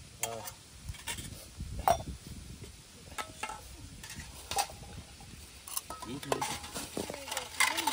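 Metal utensils being washed by hand: brass and steel plates, bowls and cups knocking and clinking, some strikes ringing briefly, with water poured and splashing over a brass plate about halfway through.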